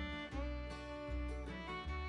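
Background instrumental music, with held notes and a bass line that changes about every half second.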